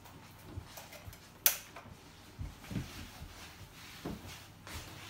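Hard plastic toys being handled and put back on a table: scattered clicks and knocks. The sharpest click comes about a second and a half in, and a few dull thumps follow around the middle.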